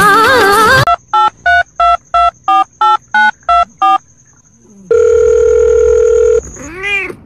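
Telephone keypad beeps: nine short tones about three a second, then after a pause a steady tone of about a second and a half. Music cuts off just before the beeps begin, and a brief rising-and-falling sound follows near the end.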